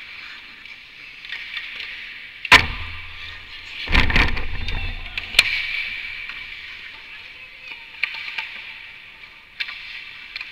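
Ice rink play: a steady scraping hiss of skates on ice, broken by a loud bang against the rink boards and glass about two and a half seconds in and a heavier one around four seconds, each leaving a low booming rumble, then a sharp click and a few lighter knocks of sticks and puck.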